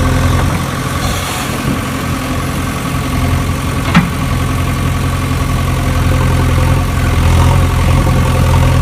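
A steady engine drone, like an engine idling, with one sharp click about four seconds in.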